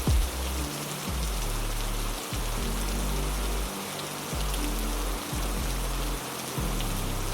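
Steady rain hiss over low, sustained background music whose bass notes change every second or so. Two quick, low falling thuds come right at the start.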